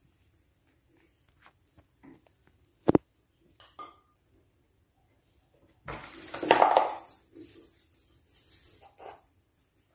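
Baby monkey making short whimpering cries and rustling, loudest about six to seven seconds in, with a single sharp knock about three seconds in.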